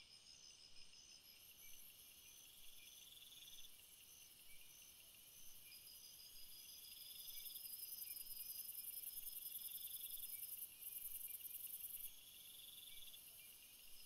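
Faint, high-pitched chirping of insects: several pulsing trills at different pitches repeating steadily, with a hissing buzz that swells for a few seconds in the middle.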